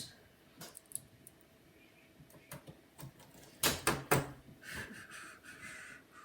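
Clicks and knocks from handling a plastic laptop bottom case and small precision-screwdriver tools, with a cluster of three or four louder knocks a little past the middle, then a second or so of scratchy scraping.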